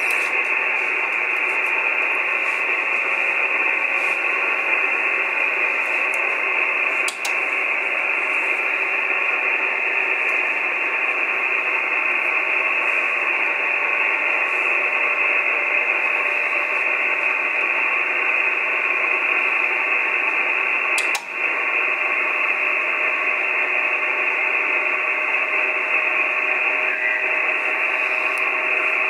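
Icom IC-9700 transceiver's speaker giving steady receiver hiss, cut off sharply at the top and bottom like a radio's audio filter, while it listens to a satellite downlink, with a few faint steady tones in the noise. The audio briefly drops out twice.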